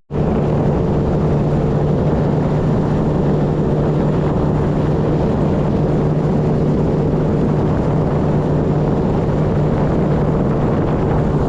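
Motorboat engine running steadily while the boat is underway: a constant hum over a loud rushing noise.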